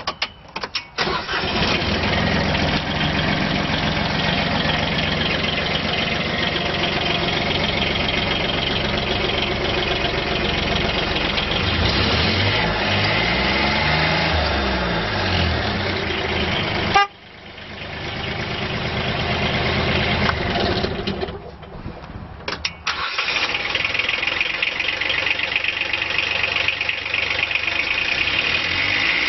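Diesel engine of a 2011 Bobcat 3400 utility vehicle starting and running, with its pitch rising and falling as the throttle pedal is worked in the middle stretch. It cuts out suddenly with a click about halfway through, comes back up, and runs steadily again.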